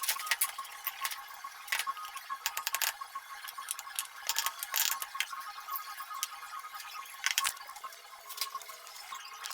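Irregular light clicks and clinks of small hard parts being handled, over a faint steady high-pitched hum.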